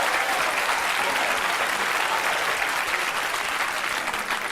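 Studio audience applauding steadily, beginning to die down near the end.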